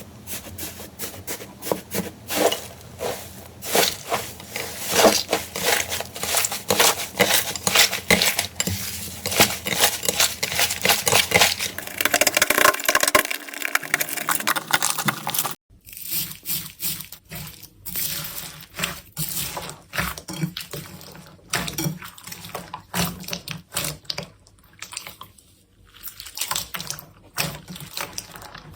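Slime being squished and stretched by hand, with dense crackling clicks and pops. It cuts off suddenly about halfway through, and sparser wet clicks follow.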